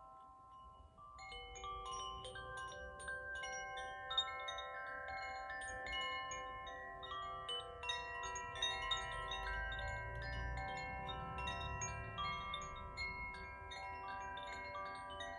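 Koshi wind chimes played by hand, their tuned rods struck by the inner clapper and ringing in many overlapping, sustained notes. The ringing picks up about a second in after a near-quiet start.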